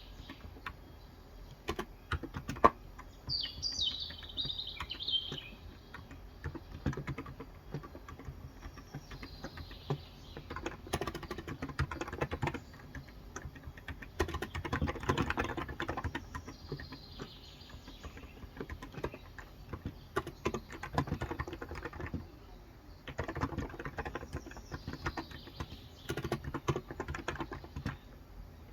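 Typing on a Cox Endeavour electro-capacitive tenkeyless keyboard with 35 g switches: keystrokes in irregular bursts with short pauses. Birds chirp in the background, clearest a few seconds in.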